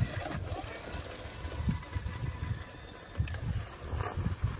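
Wind buffeting the microphone in uneven low gusts.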